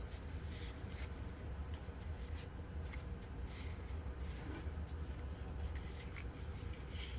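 Trading cards being slid out of a freshly cut-open foil pack and handled: faint rustling, rubbing and soft ticks of card stock, over a steady low hum.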